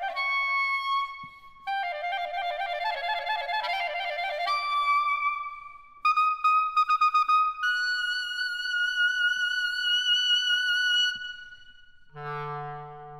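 Solo clarinet playing unaccompanied: short phrases of held notes, then rapid repeated notes about six seconds in, a long high note with vibrato, and a low held note near the end.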